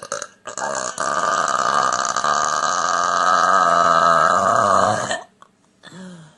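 A woman's long, loud burp lasting about four and a half seconds, low in pitch and wavering, after a brief sound at the very start.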